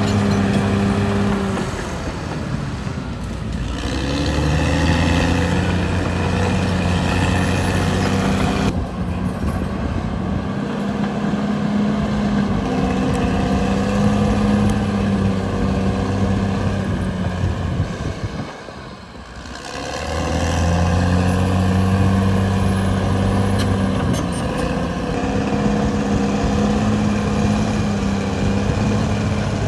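Caterpillar D6R XL bulldozer's diesel engine working, its pitch rising and falling with the load, with a brief dip in loudness about two-thirds of the way through.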